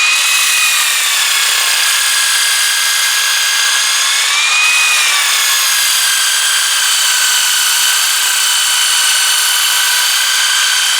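Electric power tool running steadily with 400-grit abrasive paper, a knife blade held against it to grind off the burr. Its motor whine lifts in pitch briefly near the start and again about four seconds in.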